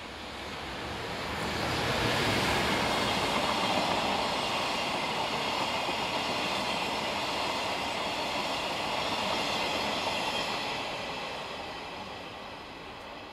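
Train passing close by: an electric locomotive hauling unpowered new Yokohama Municipal Subway cars, their wheels rolling over the rails. It builds over the first two seconds, stays loud while the cars go by, and fades near the end.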